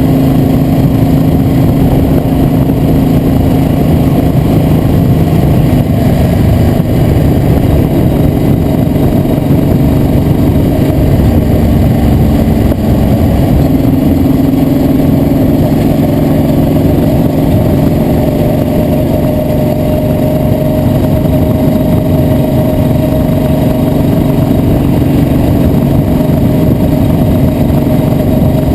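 A vehicle's engine running steadily on the move, with a loud constant rush and small shifts in engine pitch; over the second half a thin tone slowly rises.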